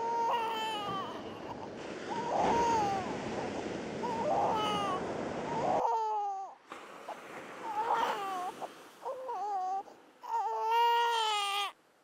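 Infant crying in repeated short wails over the wash of surf. The surf noise drops away about six seconds in, and a longer cry near the end cuts off abruptly.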